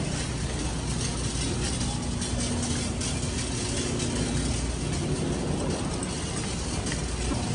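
Steady low rumble of a shopping cart rolling across a supermarket floor, over the hum of refrigerated display cases.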